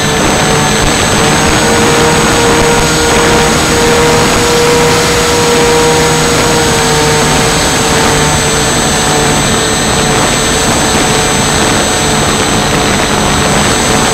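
Twin Dream RC plane's twin electric motors and propellers whining steadily in flight, heard on the onboard camera under heavy wind rush. The pitch rises slightly about two seconds in and drops back about six seconds in.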